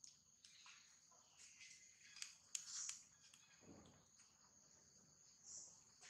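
Faint outdoor ambience: insects keep up a steady high-pitched drone, with a few soft clicks about two seconds in.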